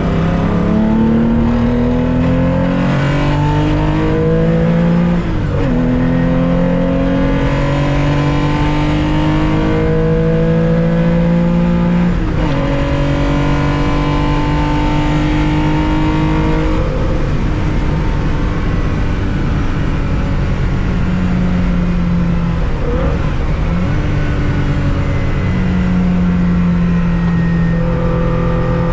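1965 Porsche 911 2.0's air-cooled flat-six at racing speed. It pulls up through the gears with upshifts about 5 and 12 seconds in, then runs at high, fairly steady revs with a brief dip in revs a little after 20 seconds.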